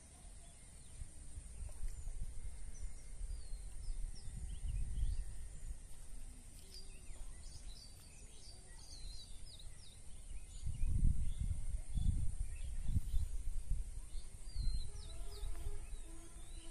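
Outdoor pond-side ambience: small birds chirping with many short, quick high notes, and a few bursts of low rumble from wind on the microphone.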